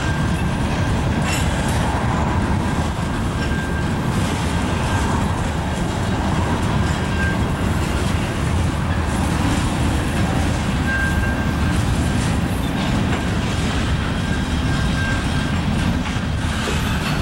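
Freight train cars rolling steadily past: tank cars, covered hoppers and boxcars, with a continuous rumble of wheels and a clickety-clack over the rail joints. A thin high tone comes and goes several times.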